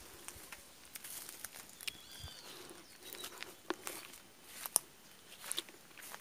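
Faint footsteps and crackling of dry grass and leaves underfoot, with foliage brushing past, heard as scattered irregular clicks. A brief high chirp comes about two seconds in.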